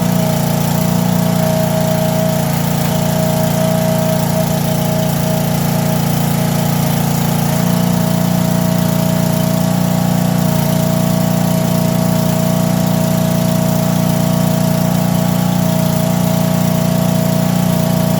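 Small gas engine of a log splitter running steadily, its pitch shifting slightly about seven seconds in.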